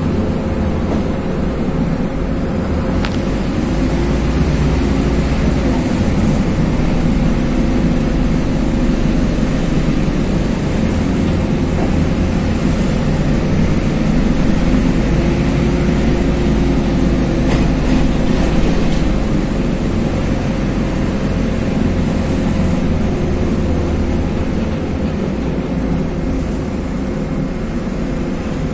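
Cabin noise inside a moving LiAZ 5292.21 city bus: the engine and road noise running steadily, with a faint constant whine. It grows a little louder around the middle.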